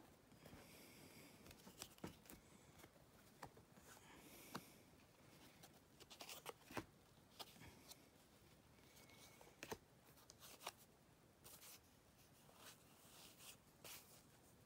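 Faint scattered clicks and short rustles of baseball cards being handled and sorted by hand.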